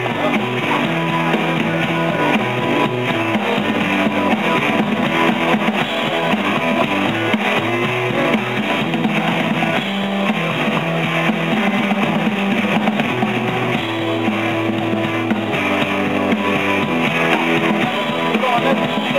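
Live rock band playing a heavy, repeating stoner-rock riff on electric guitars over a drum kit.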